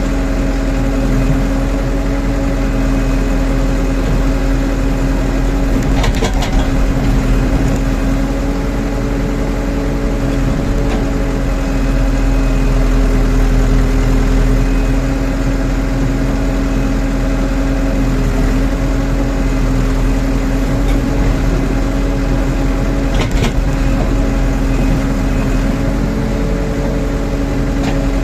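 Rondon backhoe loader's diesel engine running steadily at working speed with a constant drone, broken twice by a short knock.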